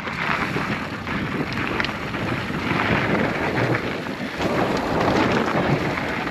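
Mountain bike rolling down a rough dirt trail, with wind on the microphone and the tyres crunching over loose ground with many small clicks and rattles.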